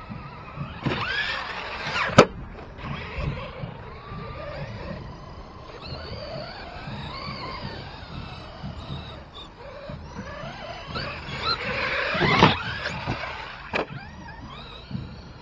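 Electric RC monster trucks' motors whining, rising and falling in pitch as they accelerate and brake on grass. Sharp knocks come about two seconds in and again near the end.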